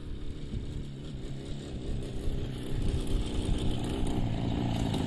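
A motorcycle engine running steadily and growing gradually louder.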